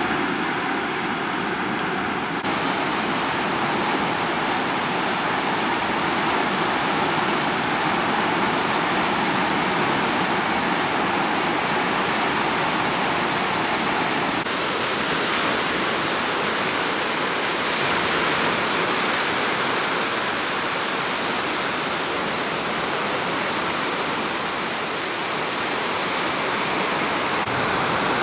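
Surf washing onto the beach: a steady rushing noise that swells and eases gently.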